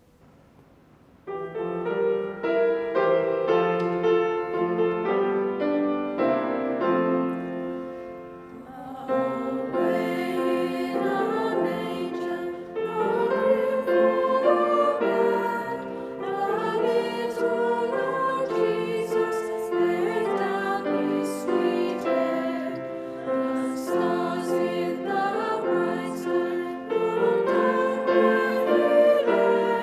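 A piano introduction starts about a second in. From about nine seconds in, choristers sing a slow, gentle carol with the piano.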